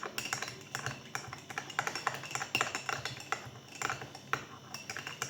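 A metal teaspoon stirring hot spice tea in a glass, clinking quickly and unevenly against the sides as the tea cubes dissolve.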